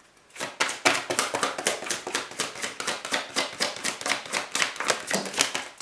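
A deck of oracle cards being shuffled by hand: a quick, slightly irregular run of papery card taps and slaps, about six a second, starting a moment in.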